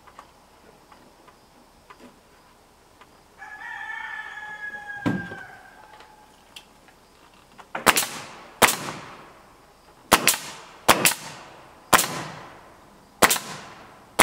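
A rooster crows once, a call of about two seconds, with a thump near its end. Then a nail gun fires about six sharp shots, roughly one a second, nailing a wooden siding board to the wall.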